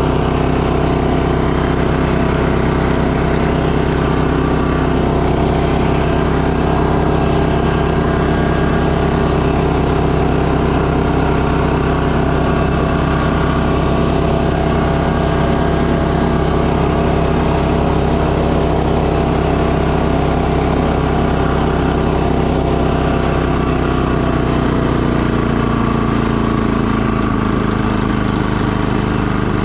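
Tracked two-stage snowblower's engine running steadily under load as it clears and throws snow, its pitch sagging slightly in the last few seconds.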